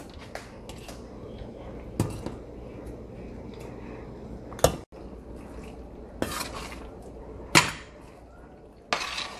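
A utensil knocking and scraping against a cooking pan as pasta is mixed into a creamy sauce: about five separate clinks over a low steady background.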